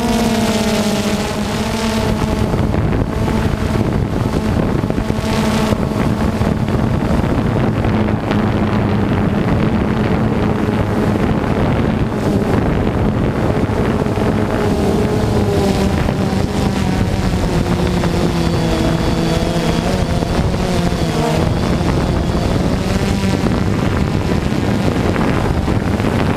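Drone's electric motors and propellers humming steadily, the pitch wavering up and down as the motors change speed, with wind noise on the microphone.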